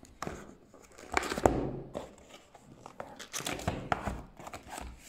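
A white cardboard box being handled and opened by hand: irregular scrapes, clicks and rustles of cardboard, loudest about a second and a half in.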